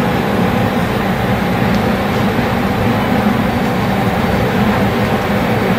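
Steady, even rushing noise of commercial kitchen equipment: the grill station and its ventilation running.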